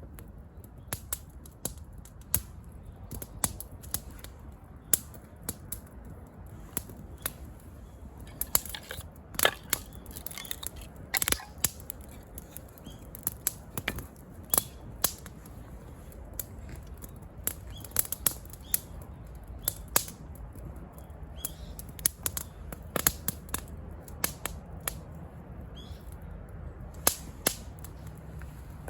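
Wood campfire crackling, with irregular sharp pops scattered throughout.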